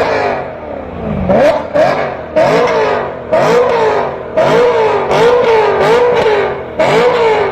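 V8 performance car engine revved through its exhaust in quick repeated throttle blips, each one shooting up in pitch and falling back, roughly once a second.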